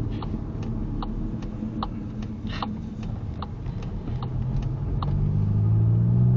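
Car's turn-signal indicator ticking steadily, about two to three clicks a second, over the engine running inside the cabin; from about four seconds in the engine note rises as the car accelerates.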